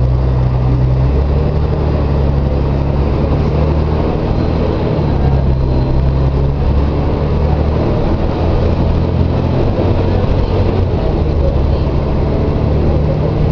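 Volvo B58 ECO inline-six diesel bus engine running under load, a loud, steady low drone whose pitch steps up and down several times as the bus drives.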